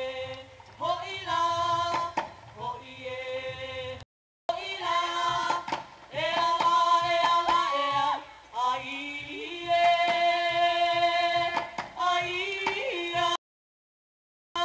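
Chanting for a hula kahiko: a voice holding long, sliding notes, with sharp percussive strokes. The sound cuts out entirely for a moment about four seconds in, and again near the end.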